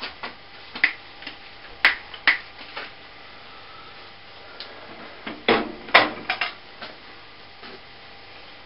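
Scattered sharp clicks and knocks at uneven intervals from hand work on a stopped metal shaper, with cutting oil being brushed onto the workpiece, over a faint steady hum. The strongest knocks come in two clusters, about two seconds in and again near six seconds.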